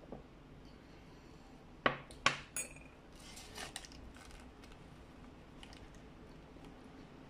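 A ceramic mug set down on a hard surface, knocking two or three times in quick succession with a short ring. Then soft rustling and chewing as a burger in its paper wrapper is bitten into.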